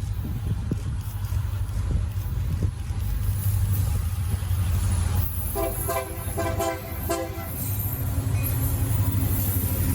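Freight train rolling past with a heavy low rumble. About five and a half seconds in, the locomotive's K3 air horn sounds one short chord of under two seconds.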